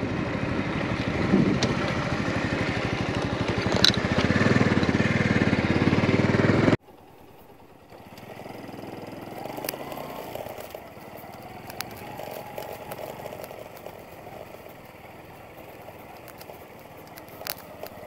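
Vehicle engine running steadily with an even pulse, louder from about four seconds in, then cut off abruptly by a cut to a much quieter stretch with scattered clicks and crackles.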